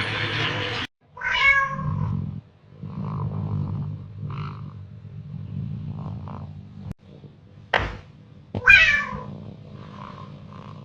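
Cat meowing: two loud meows, one about a second and a half in and one near nine seconds in, with quieter mews between them. A sharp click comes just before the second meow.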